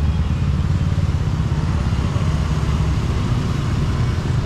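Busy street traffic, mainly motorbikes and cars, running by steadily as a low rumble.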